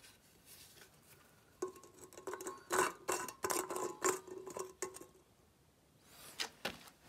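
Aluminium drink cans being handled and set down on a concrete floor: a quick run of light metallic clinks and scrapes with a faint ring, starting about one and a half seconds in and lasting about three seconds, then a few single taps near the end.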